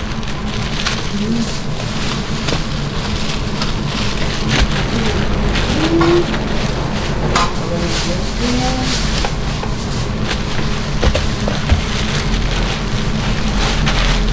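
Steady hissing background noise at a food stall, with scattered light clicks and a few brief, faint voices behind it.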